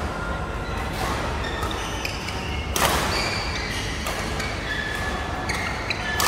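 Badminton rally: rackets striking the shuttlecock, with a sharp hit about three seconds in and another at the end, and short squeaks of shoes on the court mat, over the steady noise of a busy indoor hall.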